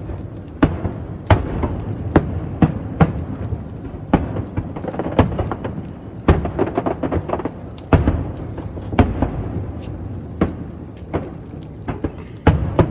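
Fireworks shells bursting in quick succession: many sharp bangs, about one or two a second, over a steady low rumble.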